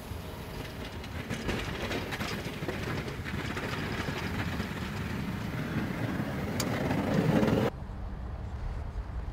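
2015 Ford F-150 pickup pushing snow with a Boss plow blade: a rumbling rush of moving snow and engine with fine clattering, growing louder as it comes closer, then cut off abruptly about three-quarters of the way in, leaving a lower, steadier background noise.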